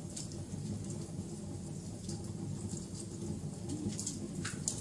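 Wood fire crackling: scattered sharp pops and snaps over a steady low rumble, with a louder snap near the end.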